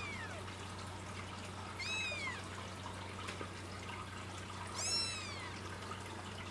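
A four-week-old Persian kitten mewing: three short, high cries, each rising then falling in pitch, one at the start, one about two seconds in and one about five seconds in, over a faint steady hum.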